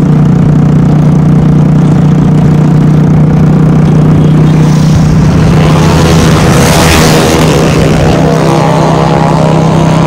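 Motorcycle engine droning at a steady speed on the road. A rush of noise swells to a peak about seven seconds in, then fades.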